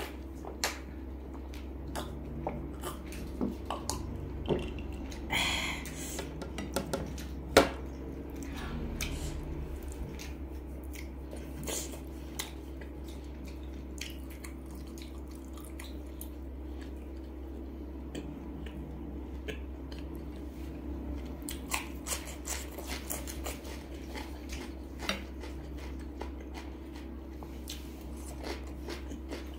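Close-up eating sounds: sips and swallows of iced water and a single sharp knock a few seconds in, then wet chewing and biting of grilled pork sausage skewers (nem nướng). A steady low hum runs underneath.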